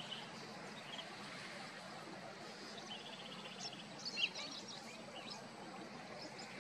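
Wild birds calling over steady wetland background noise: scattered short, high chirps, a fast even trill about three seconds in, and a sharper, louder call just after four seconds.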